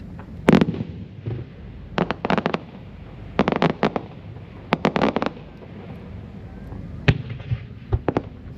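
Aerial firework shells bursting in a fireworks display: sharp bangs that come singly and in quick rapid-fire clusters, the loudest single bang about half a second in.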